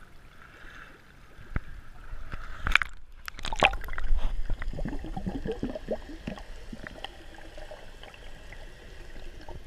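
Water slapping at the surface, then a camera plunging under water about three seconds in, followed by gurgling air bubbles from scuba divers' regulators heard through the water.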